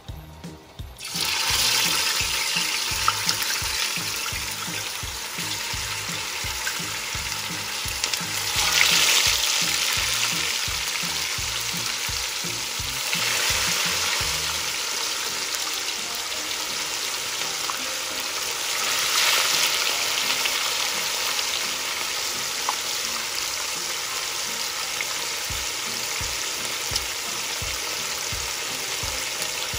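Unbreaded chicken pieces frying in hot oil in a deep pot: a steady hissing sizzle that starts suddenly about a second in as the first piece goes in, swelling louder a few times as more pieces are added.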